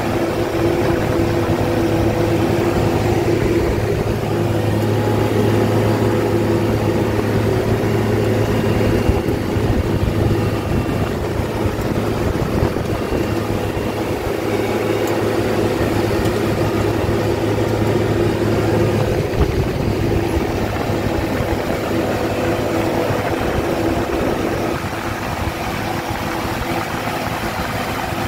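Farm tractor diesel engine running steadily under load while pulling a subsoiler through the field, a constant drone with a slight change in tone about 25 seconds in.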